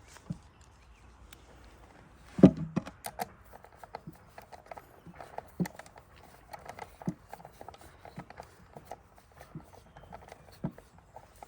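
Objects being handled, making scattered short clicks and knocks, with one louder knock about two and a half seconds in.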